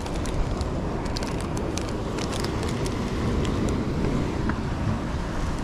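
Wind blowing across the microphone over the wash of the sea, with a scatter of light crackles that stops about two-thirds of the way through.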